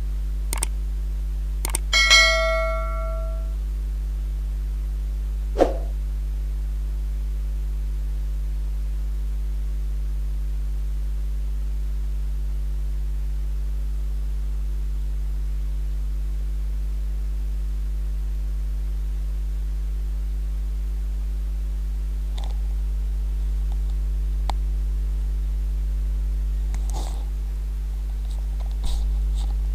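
Steady low electrical hum, with a few sharp clicks and, about two seconds in, a short bell-like 'ding' that rings briefly and fades: a subscribe-button animation sound effect. Faint clicks come near the end.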